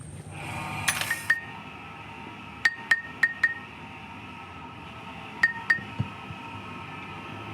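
Metal striking metal in a series of sharp clinks with a short ringing note, in small groups of two to four, over a steady background hum.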